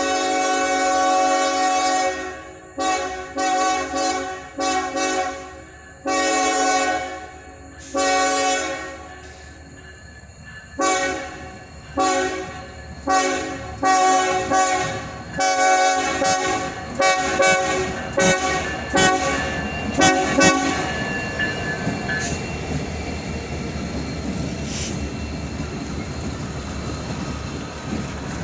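A Norfolk Southern SD70ACC locomotive's air horn, sounding a chord, plays a horn show: a long opening blast, then a run of short toots mixed with a few longer blasts for about twenty seconds. After the horn stops, the rumble and wheel clatter of the train rolling by carry on.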